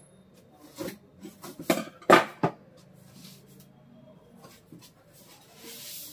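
Cardboard box being opened by hand: a few sharp knocks and thumps of the flaps and packing, the loudest about two seconds in, then a short rustling scrape near the end.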